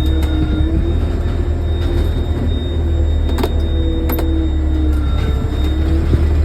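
Autocar truck's engine running with a steady low drone, heard inside the cab, while a hydraulic whine comes and goes in spells, bending slightly in pitch, as the joystick-controlled equipment is worked. A few sharp clicks are heard along the way.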